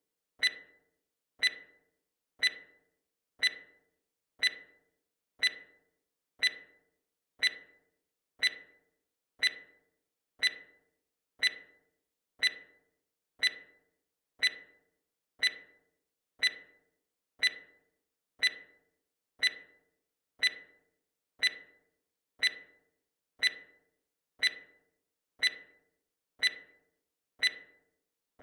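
Countdown timer sound effect: a short, sharp tick once a second, each with a brief high ring that dies away quickly, marking off the seconds.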